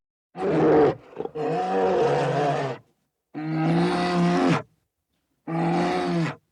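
A bear calling: four drawn-out, pitched calls lasting about one to one and a half seconds each, with a short extra call after the first, separated by sudden dead silences from edited cuts.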